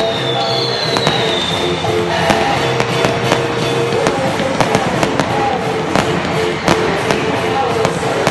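Fireworks going off: aerial shells bursting in an irregular string of sharp bangs and crackles from about a second in, over loud music.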